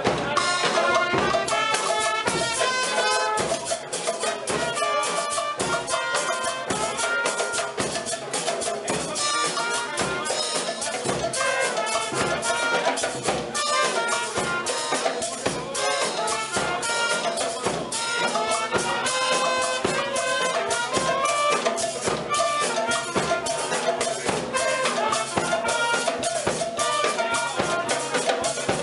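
A supporters' drum band playing a fast, steady beat on a bass drum and a set of marching tenor drums, with a brass horn playing a tune over the drumming.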